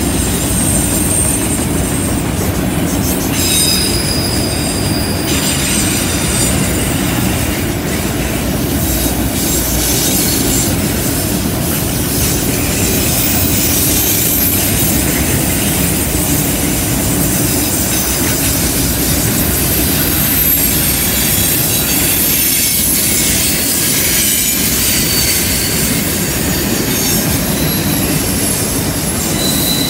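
Freight train of enclosed autorack cars rolling past on a curve: a steady rumble of wheels on rail, with thin high-pitched wheel flange squeal coming and going as the wheels grind through the curve.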